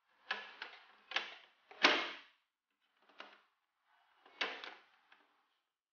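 Irregular knocks and taps of a fold-out cardboard toy train station being handled and set down on a table, the loudest about two seconds in.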